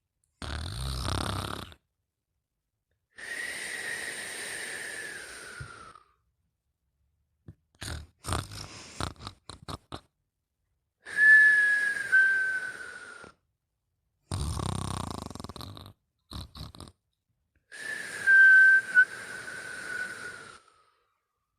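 Snoring in sleep: rough, rattling snores alternating with long whistling breaths. Each whistle glides slowly down in pitch over two to three seconds. Midway there is a quick run of short sputtering snorts.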